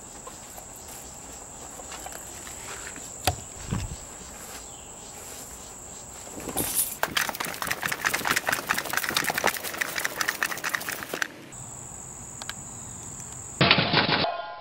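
Crickets trilling steadily, with a few seconds of loud rustling and scuffing footsteps in the middle and a short loud burst of sound near the end.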